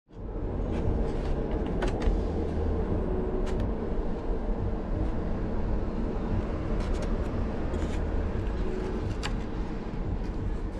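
A steady low rumble of background machine noise, with a few light clicks and crackles from the clear polycarbonate car body being handled.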